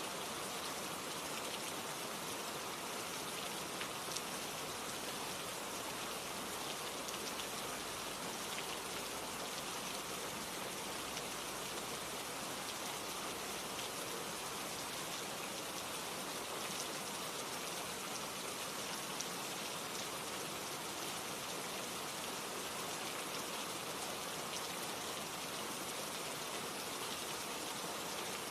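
Steady rain falling on a surface, an even hiss dotted with fine drop ticks.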